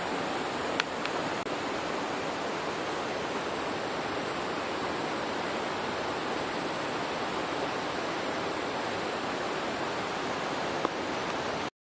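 Steady outdoor rushing noise, with a sharp click about a second in and another near the end; the sound cuts off suddenly just before the end.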